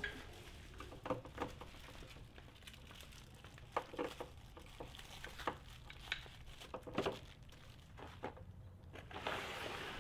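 Faint, scattered clicks and taps from hand-assembling a wardrobe door with a hand tool, no power tools. Near the end, a small plastic bag of screws rustles.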